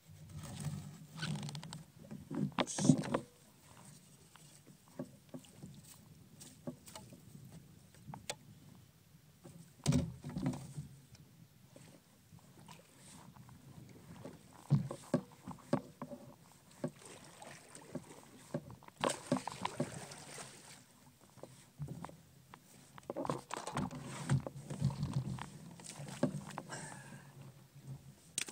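Paddling a Jackson Coosa fishing kayak: the paddle blades dipping and splashing, with irregular knocks and clunks against the kayak, the loudest about three and ten seconds in.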